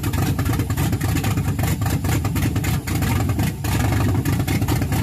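A loud engine running, with fast, uneven pulses from its exhaust.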